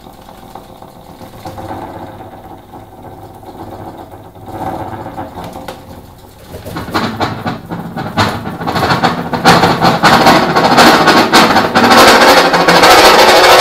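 Chromatic button accordion playing: soft held reed chords that swell into loud, dense chords with fast, even pulsing from about seven seconds in.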